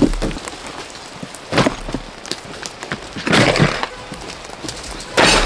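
Camping gear being unloaded and set down on wet, snowy ground: a knock at the start, another about a second and a half in, a longer rustling clatter a little past the middle and a loud thud near the end, with footsteps in between.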